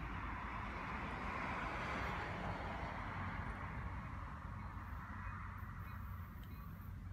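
Outdoor background noise on a railway platform as a distant train approaches: a steady low rumble and a rushing sound that swells about two seconds in, then fades. A few faint ringing tones come in near the end.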